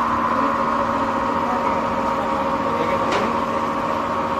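Metal lathe running with a steady motor hum, with one short click about three seconds in.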